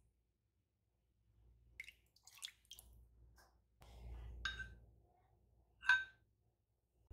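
A metal ladle clinks against a ceramic bowl twice, the louder, ringing clink about six seconds in, as chili sauce is tipped into the bowl. Soft clicks of utensil handling come before it.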